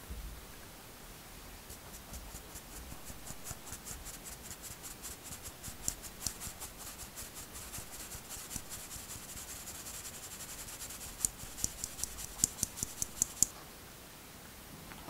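Cake flour and cocoa powder sifted through a fine metal mesh sieve: a quick, even run of soft scratchy ticks, about five a second, with several louder, sharper ticks just before it stops near the end.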